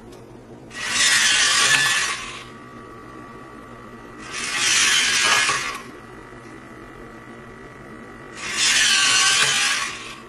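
Hobby servo motors in a 3D-printed robotic hand whirring as they drive the fingers into a new gesture, three times, each burst lasting about a second and a half. A faint steady whine lingers between the bursts.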